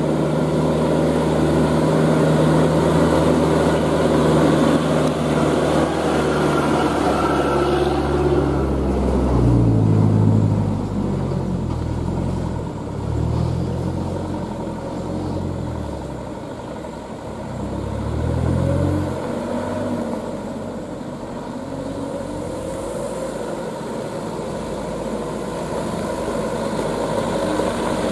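Diesel engines of heavily loaded Mitsubishi Canter trucks working up a rough dirt road. The drone holds steady at first, then the revs rise and fall several times through the middle before settling to a quieter, steady run.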